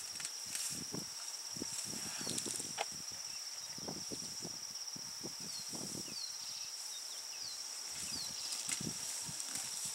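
African elephants pulling up and feeding on tall dry grass, with irregular rustling, ripping strokes, over a steady high insect drone.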